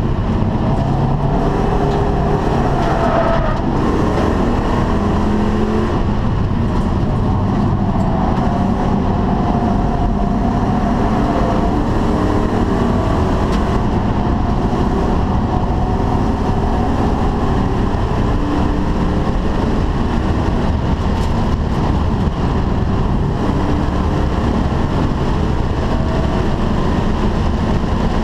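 Ford Mustang GT/CS V8 driven hard on a race track, heard from inside the cabin: the engine note rises and falls as the car accelerates and slows through the corners, over steady road and wind noise.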